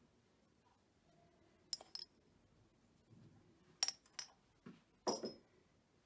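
A metal teaspoon clicking and clinking against a bowl: a few short, sharp knocks spread out, about two seconds in, twice near four seconds in, and once more about five seconds in.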